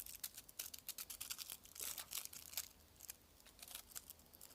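Small plastic glitter packets crinkling and being torn open: quiet runs of quick crackles and rustles in several clusters.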